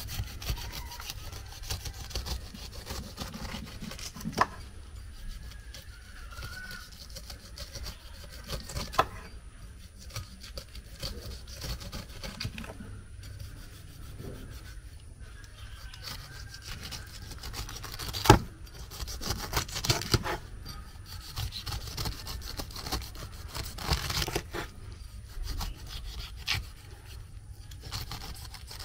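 Knife sawing and scraping through fruit, in irregular strokes, with a few sharp knocks.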